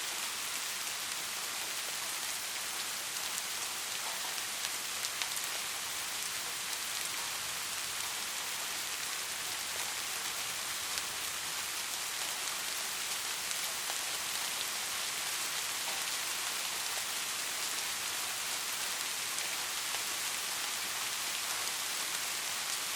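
Steady rain falling: a dense, even hiss, strongest in the high range, with scattered individual drops ticking through it.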